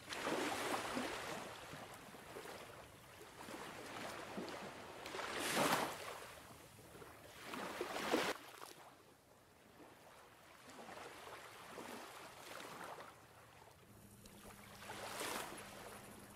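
Water washing and surging in slow swells, like waves, with four louder surges.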